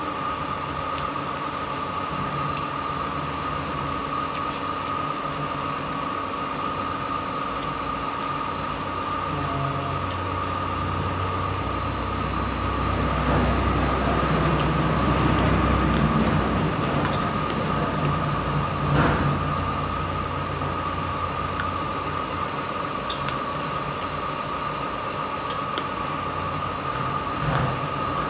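Steady engine-like mechanical hum with a constant high whine. It swells for a few seconds midway, and there is a sharp click a little later.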